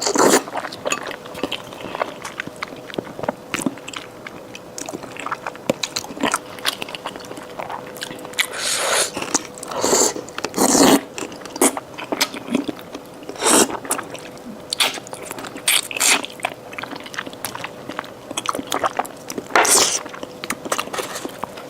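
Close-miked eating sounds of pig's trotter skin being bitten and chewed: wet, sticky chewing and smacking with many short clicks and a few louder bites. A faint steady hum runs underneath.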